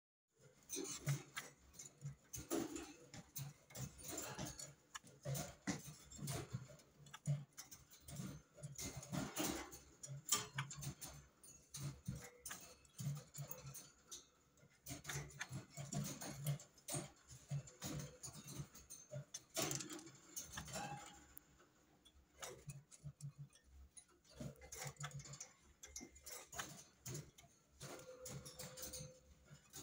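White-cheeked bulbul moving about a wire cage: irregular light taps and clicks of hopping between perches and gripping the bars.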